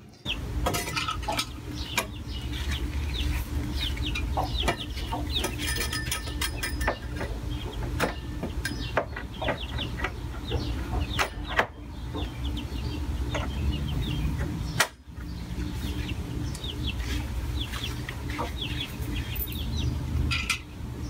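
Chickens clucking and peeping in a coop, with many short high chirps, light metal clinks, and a steady low hum underneath.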